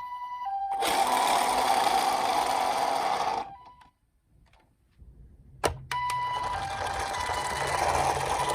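Toy minicar ambulance's electronic two-tone "pee-po" siren, alternating high and low, with a loud whirring noise of the toy car running. The whirring stops about three and a half seconds in; after a pause and a click, the siren and whirring start again.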